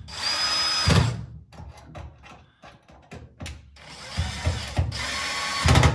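Power drill-driver running in two bursts, about a second at the start and nearly two seconds near the end, with a faint steady whine; small knocks and clicks in between.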